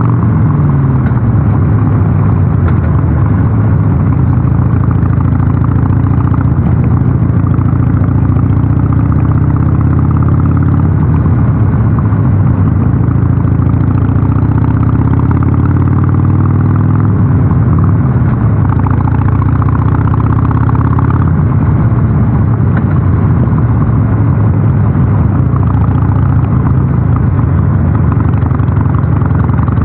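Harley-Davidson Sportster 883 Super Low's air-cooled V-twin running on the road through a North American-spec muffler. Its steady exhaust note falls and rises in pitch several times, a drop about a second in and again around two-thirds of the way through.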